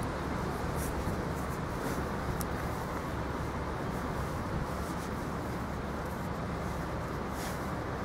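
Steady low outdoor rumble of wind and distant traffic by the river, with a few faint ticks as twigs are handled.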